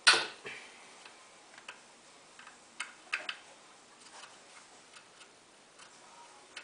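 Metal clinks and clicks of a 5 mm Allen wrench working the bolts out of the steel ring over a snowmobile's fan-belt pulley. A sharp clank comes at the start, then scattered lighter ticks at irregular intervals.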